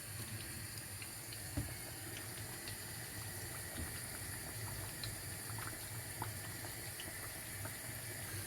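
Plantain slices frying in vegetable oil over low heat: a steady soft sizzle with scattered small pops and crackles.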